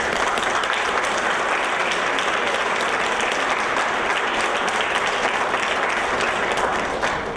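Audience applauding, a steady wash of clapping that fades away near the end.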